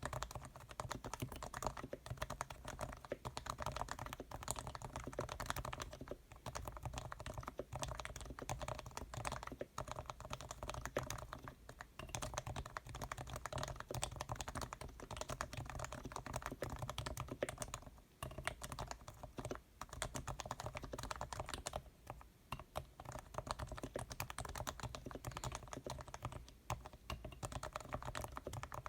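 Continuous fast typing on a Leopold FC660C keyboard's Topre electro-capacitive switches, with sliders and springs lubed with Krytox 105, stabilizers lubed with Krytox 205g2 and foam dampening inside. The keystrokes are dense and rapid, with a few short pauses.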